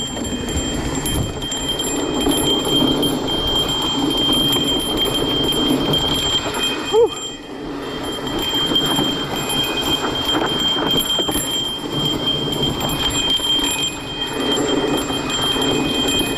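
Mountain bike rattling and its knobby tyres crunching over a rocky dirt trail while descending. A steady high-pitched tone runs underneath, breaking off briefly about seven seconds in with a short squeak.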